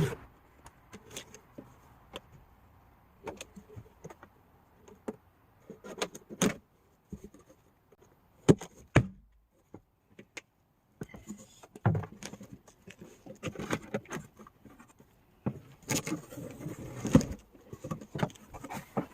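A large cardboard shipping box being handled and opened: scattered clicks, knocks and rustling scrapes, busier in the second half, with a short near-silent pause about nine seconds in.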